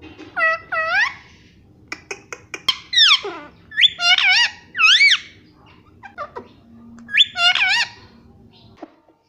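Pet parrot saying "papa" in a high, squeaky voice, the two-syllable word repeated about three times, with sharp clicks and a falling squawk between.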